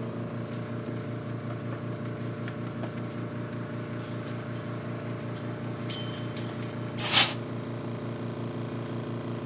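Air compressor running steadily with a pulsing hum, for airing up a bicycle tyre. About seven seconds in, a short, loud hiss of air from the hose as it goes onto the tyre valve.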